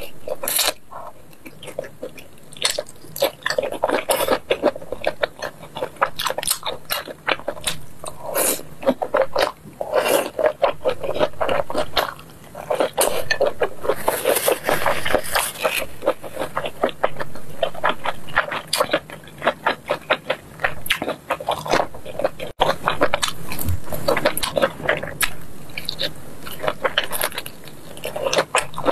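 Close-miked biting and chewing of spicy grilled sweet-potato starch sheets (kao tiao pi) off skewers: a dense, irregular run of short mouth clicks and smacks.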